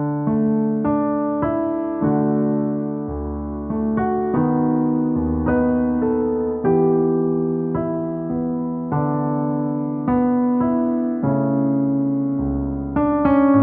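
Slow, gentle piano music: single notes and chords struck about once or twice a second and left to ring and fade, with a deeper bass note added every few seconds.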